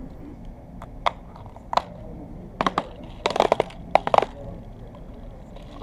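Small paperboard ice cream box being opened by hand: a run of sharp crackles and clicks as the cardboard lid is torn open and folded back, thickest near the middle, over a steady low hum.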